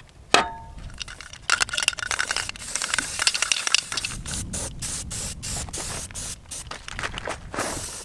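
Aerosol spray-paint can hissing in many short bursts as red paint is sprayed onto a wooden board, after a sharp click about half a second in.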